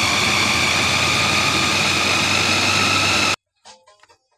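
Electric food chopper's motor running at speed, grinding a bowl of red chilies, a steady high whine that cuts off suddenly about three seconds in.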